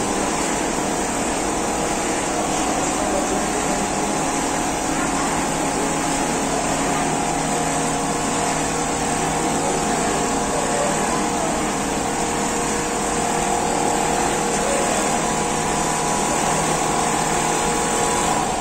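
Richpeace single-needle quilting machine running and stitching a comforter, a steady mechanical whir with a few held tones from its motors and needle head.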